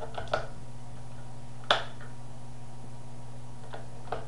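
Rechargeable NiMH battery cells being fitted into a Spektrum DX5 Rugged transmitter's plastic battery compartment: a few light clicks, one sharper snap about a second and a half in, and small ticks near the end, over a steady low hum.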